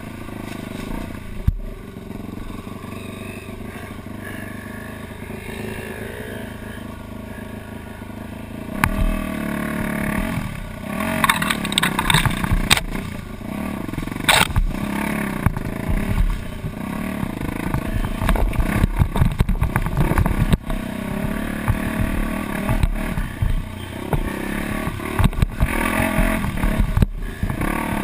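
Dirt bike engine running at low, steady revs for the first several seconds, then revving up and down harder from about nine seconds in, with clattering and knocks from the bike over rough trail ground.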